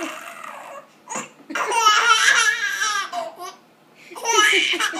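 A baby laughing in two bursts of high-pitched giggles, the first about a second and a half in and the second near the end. A brief sharp sound comes just before the first burst.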